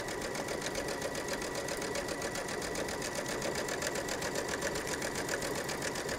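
Brother domestic sewing machine stitching steadily at speed, a fast, even run of needle strokes, sewing twill tape through three layers of fabric and tape.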